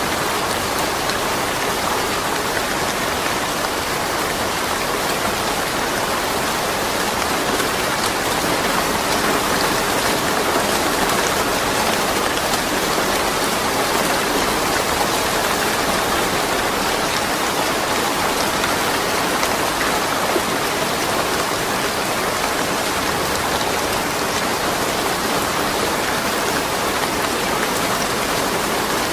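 Steady rain falling, a dense, even hiss of many drops with no thunder.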